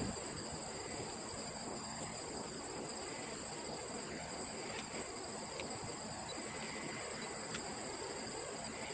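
Steady high-pitched insect chorus over a low, even rush of wind across the microphone, with a few faint ticks.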